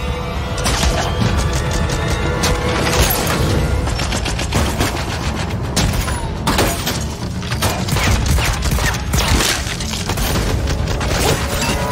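Rapid fire from silenced pistols, many shots in quick succession, with bullet impacts smashing fruit and glass, over a dramatic music score.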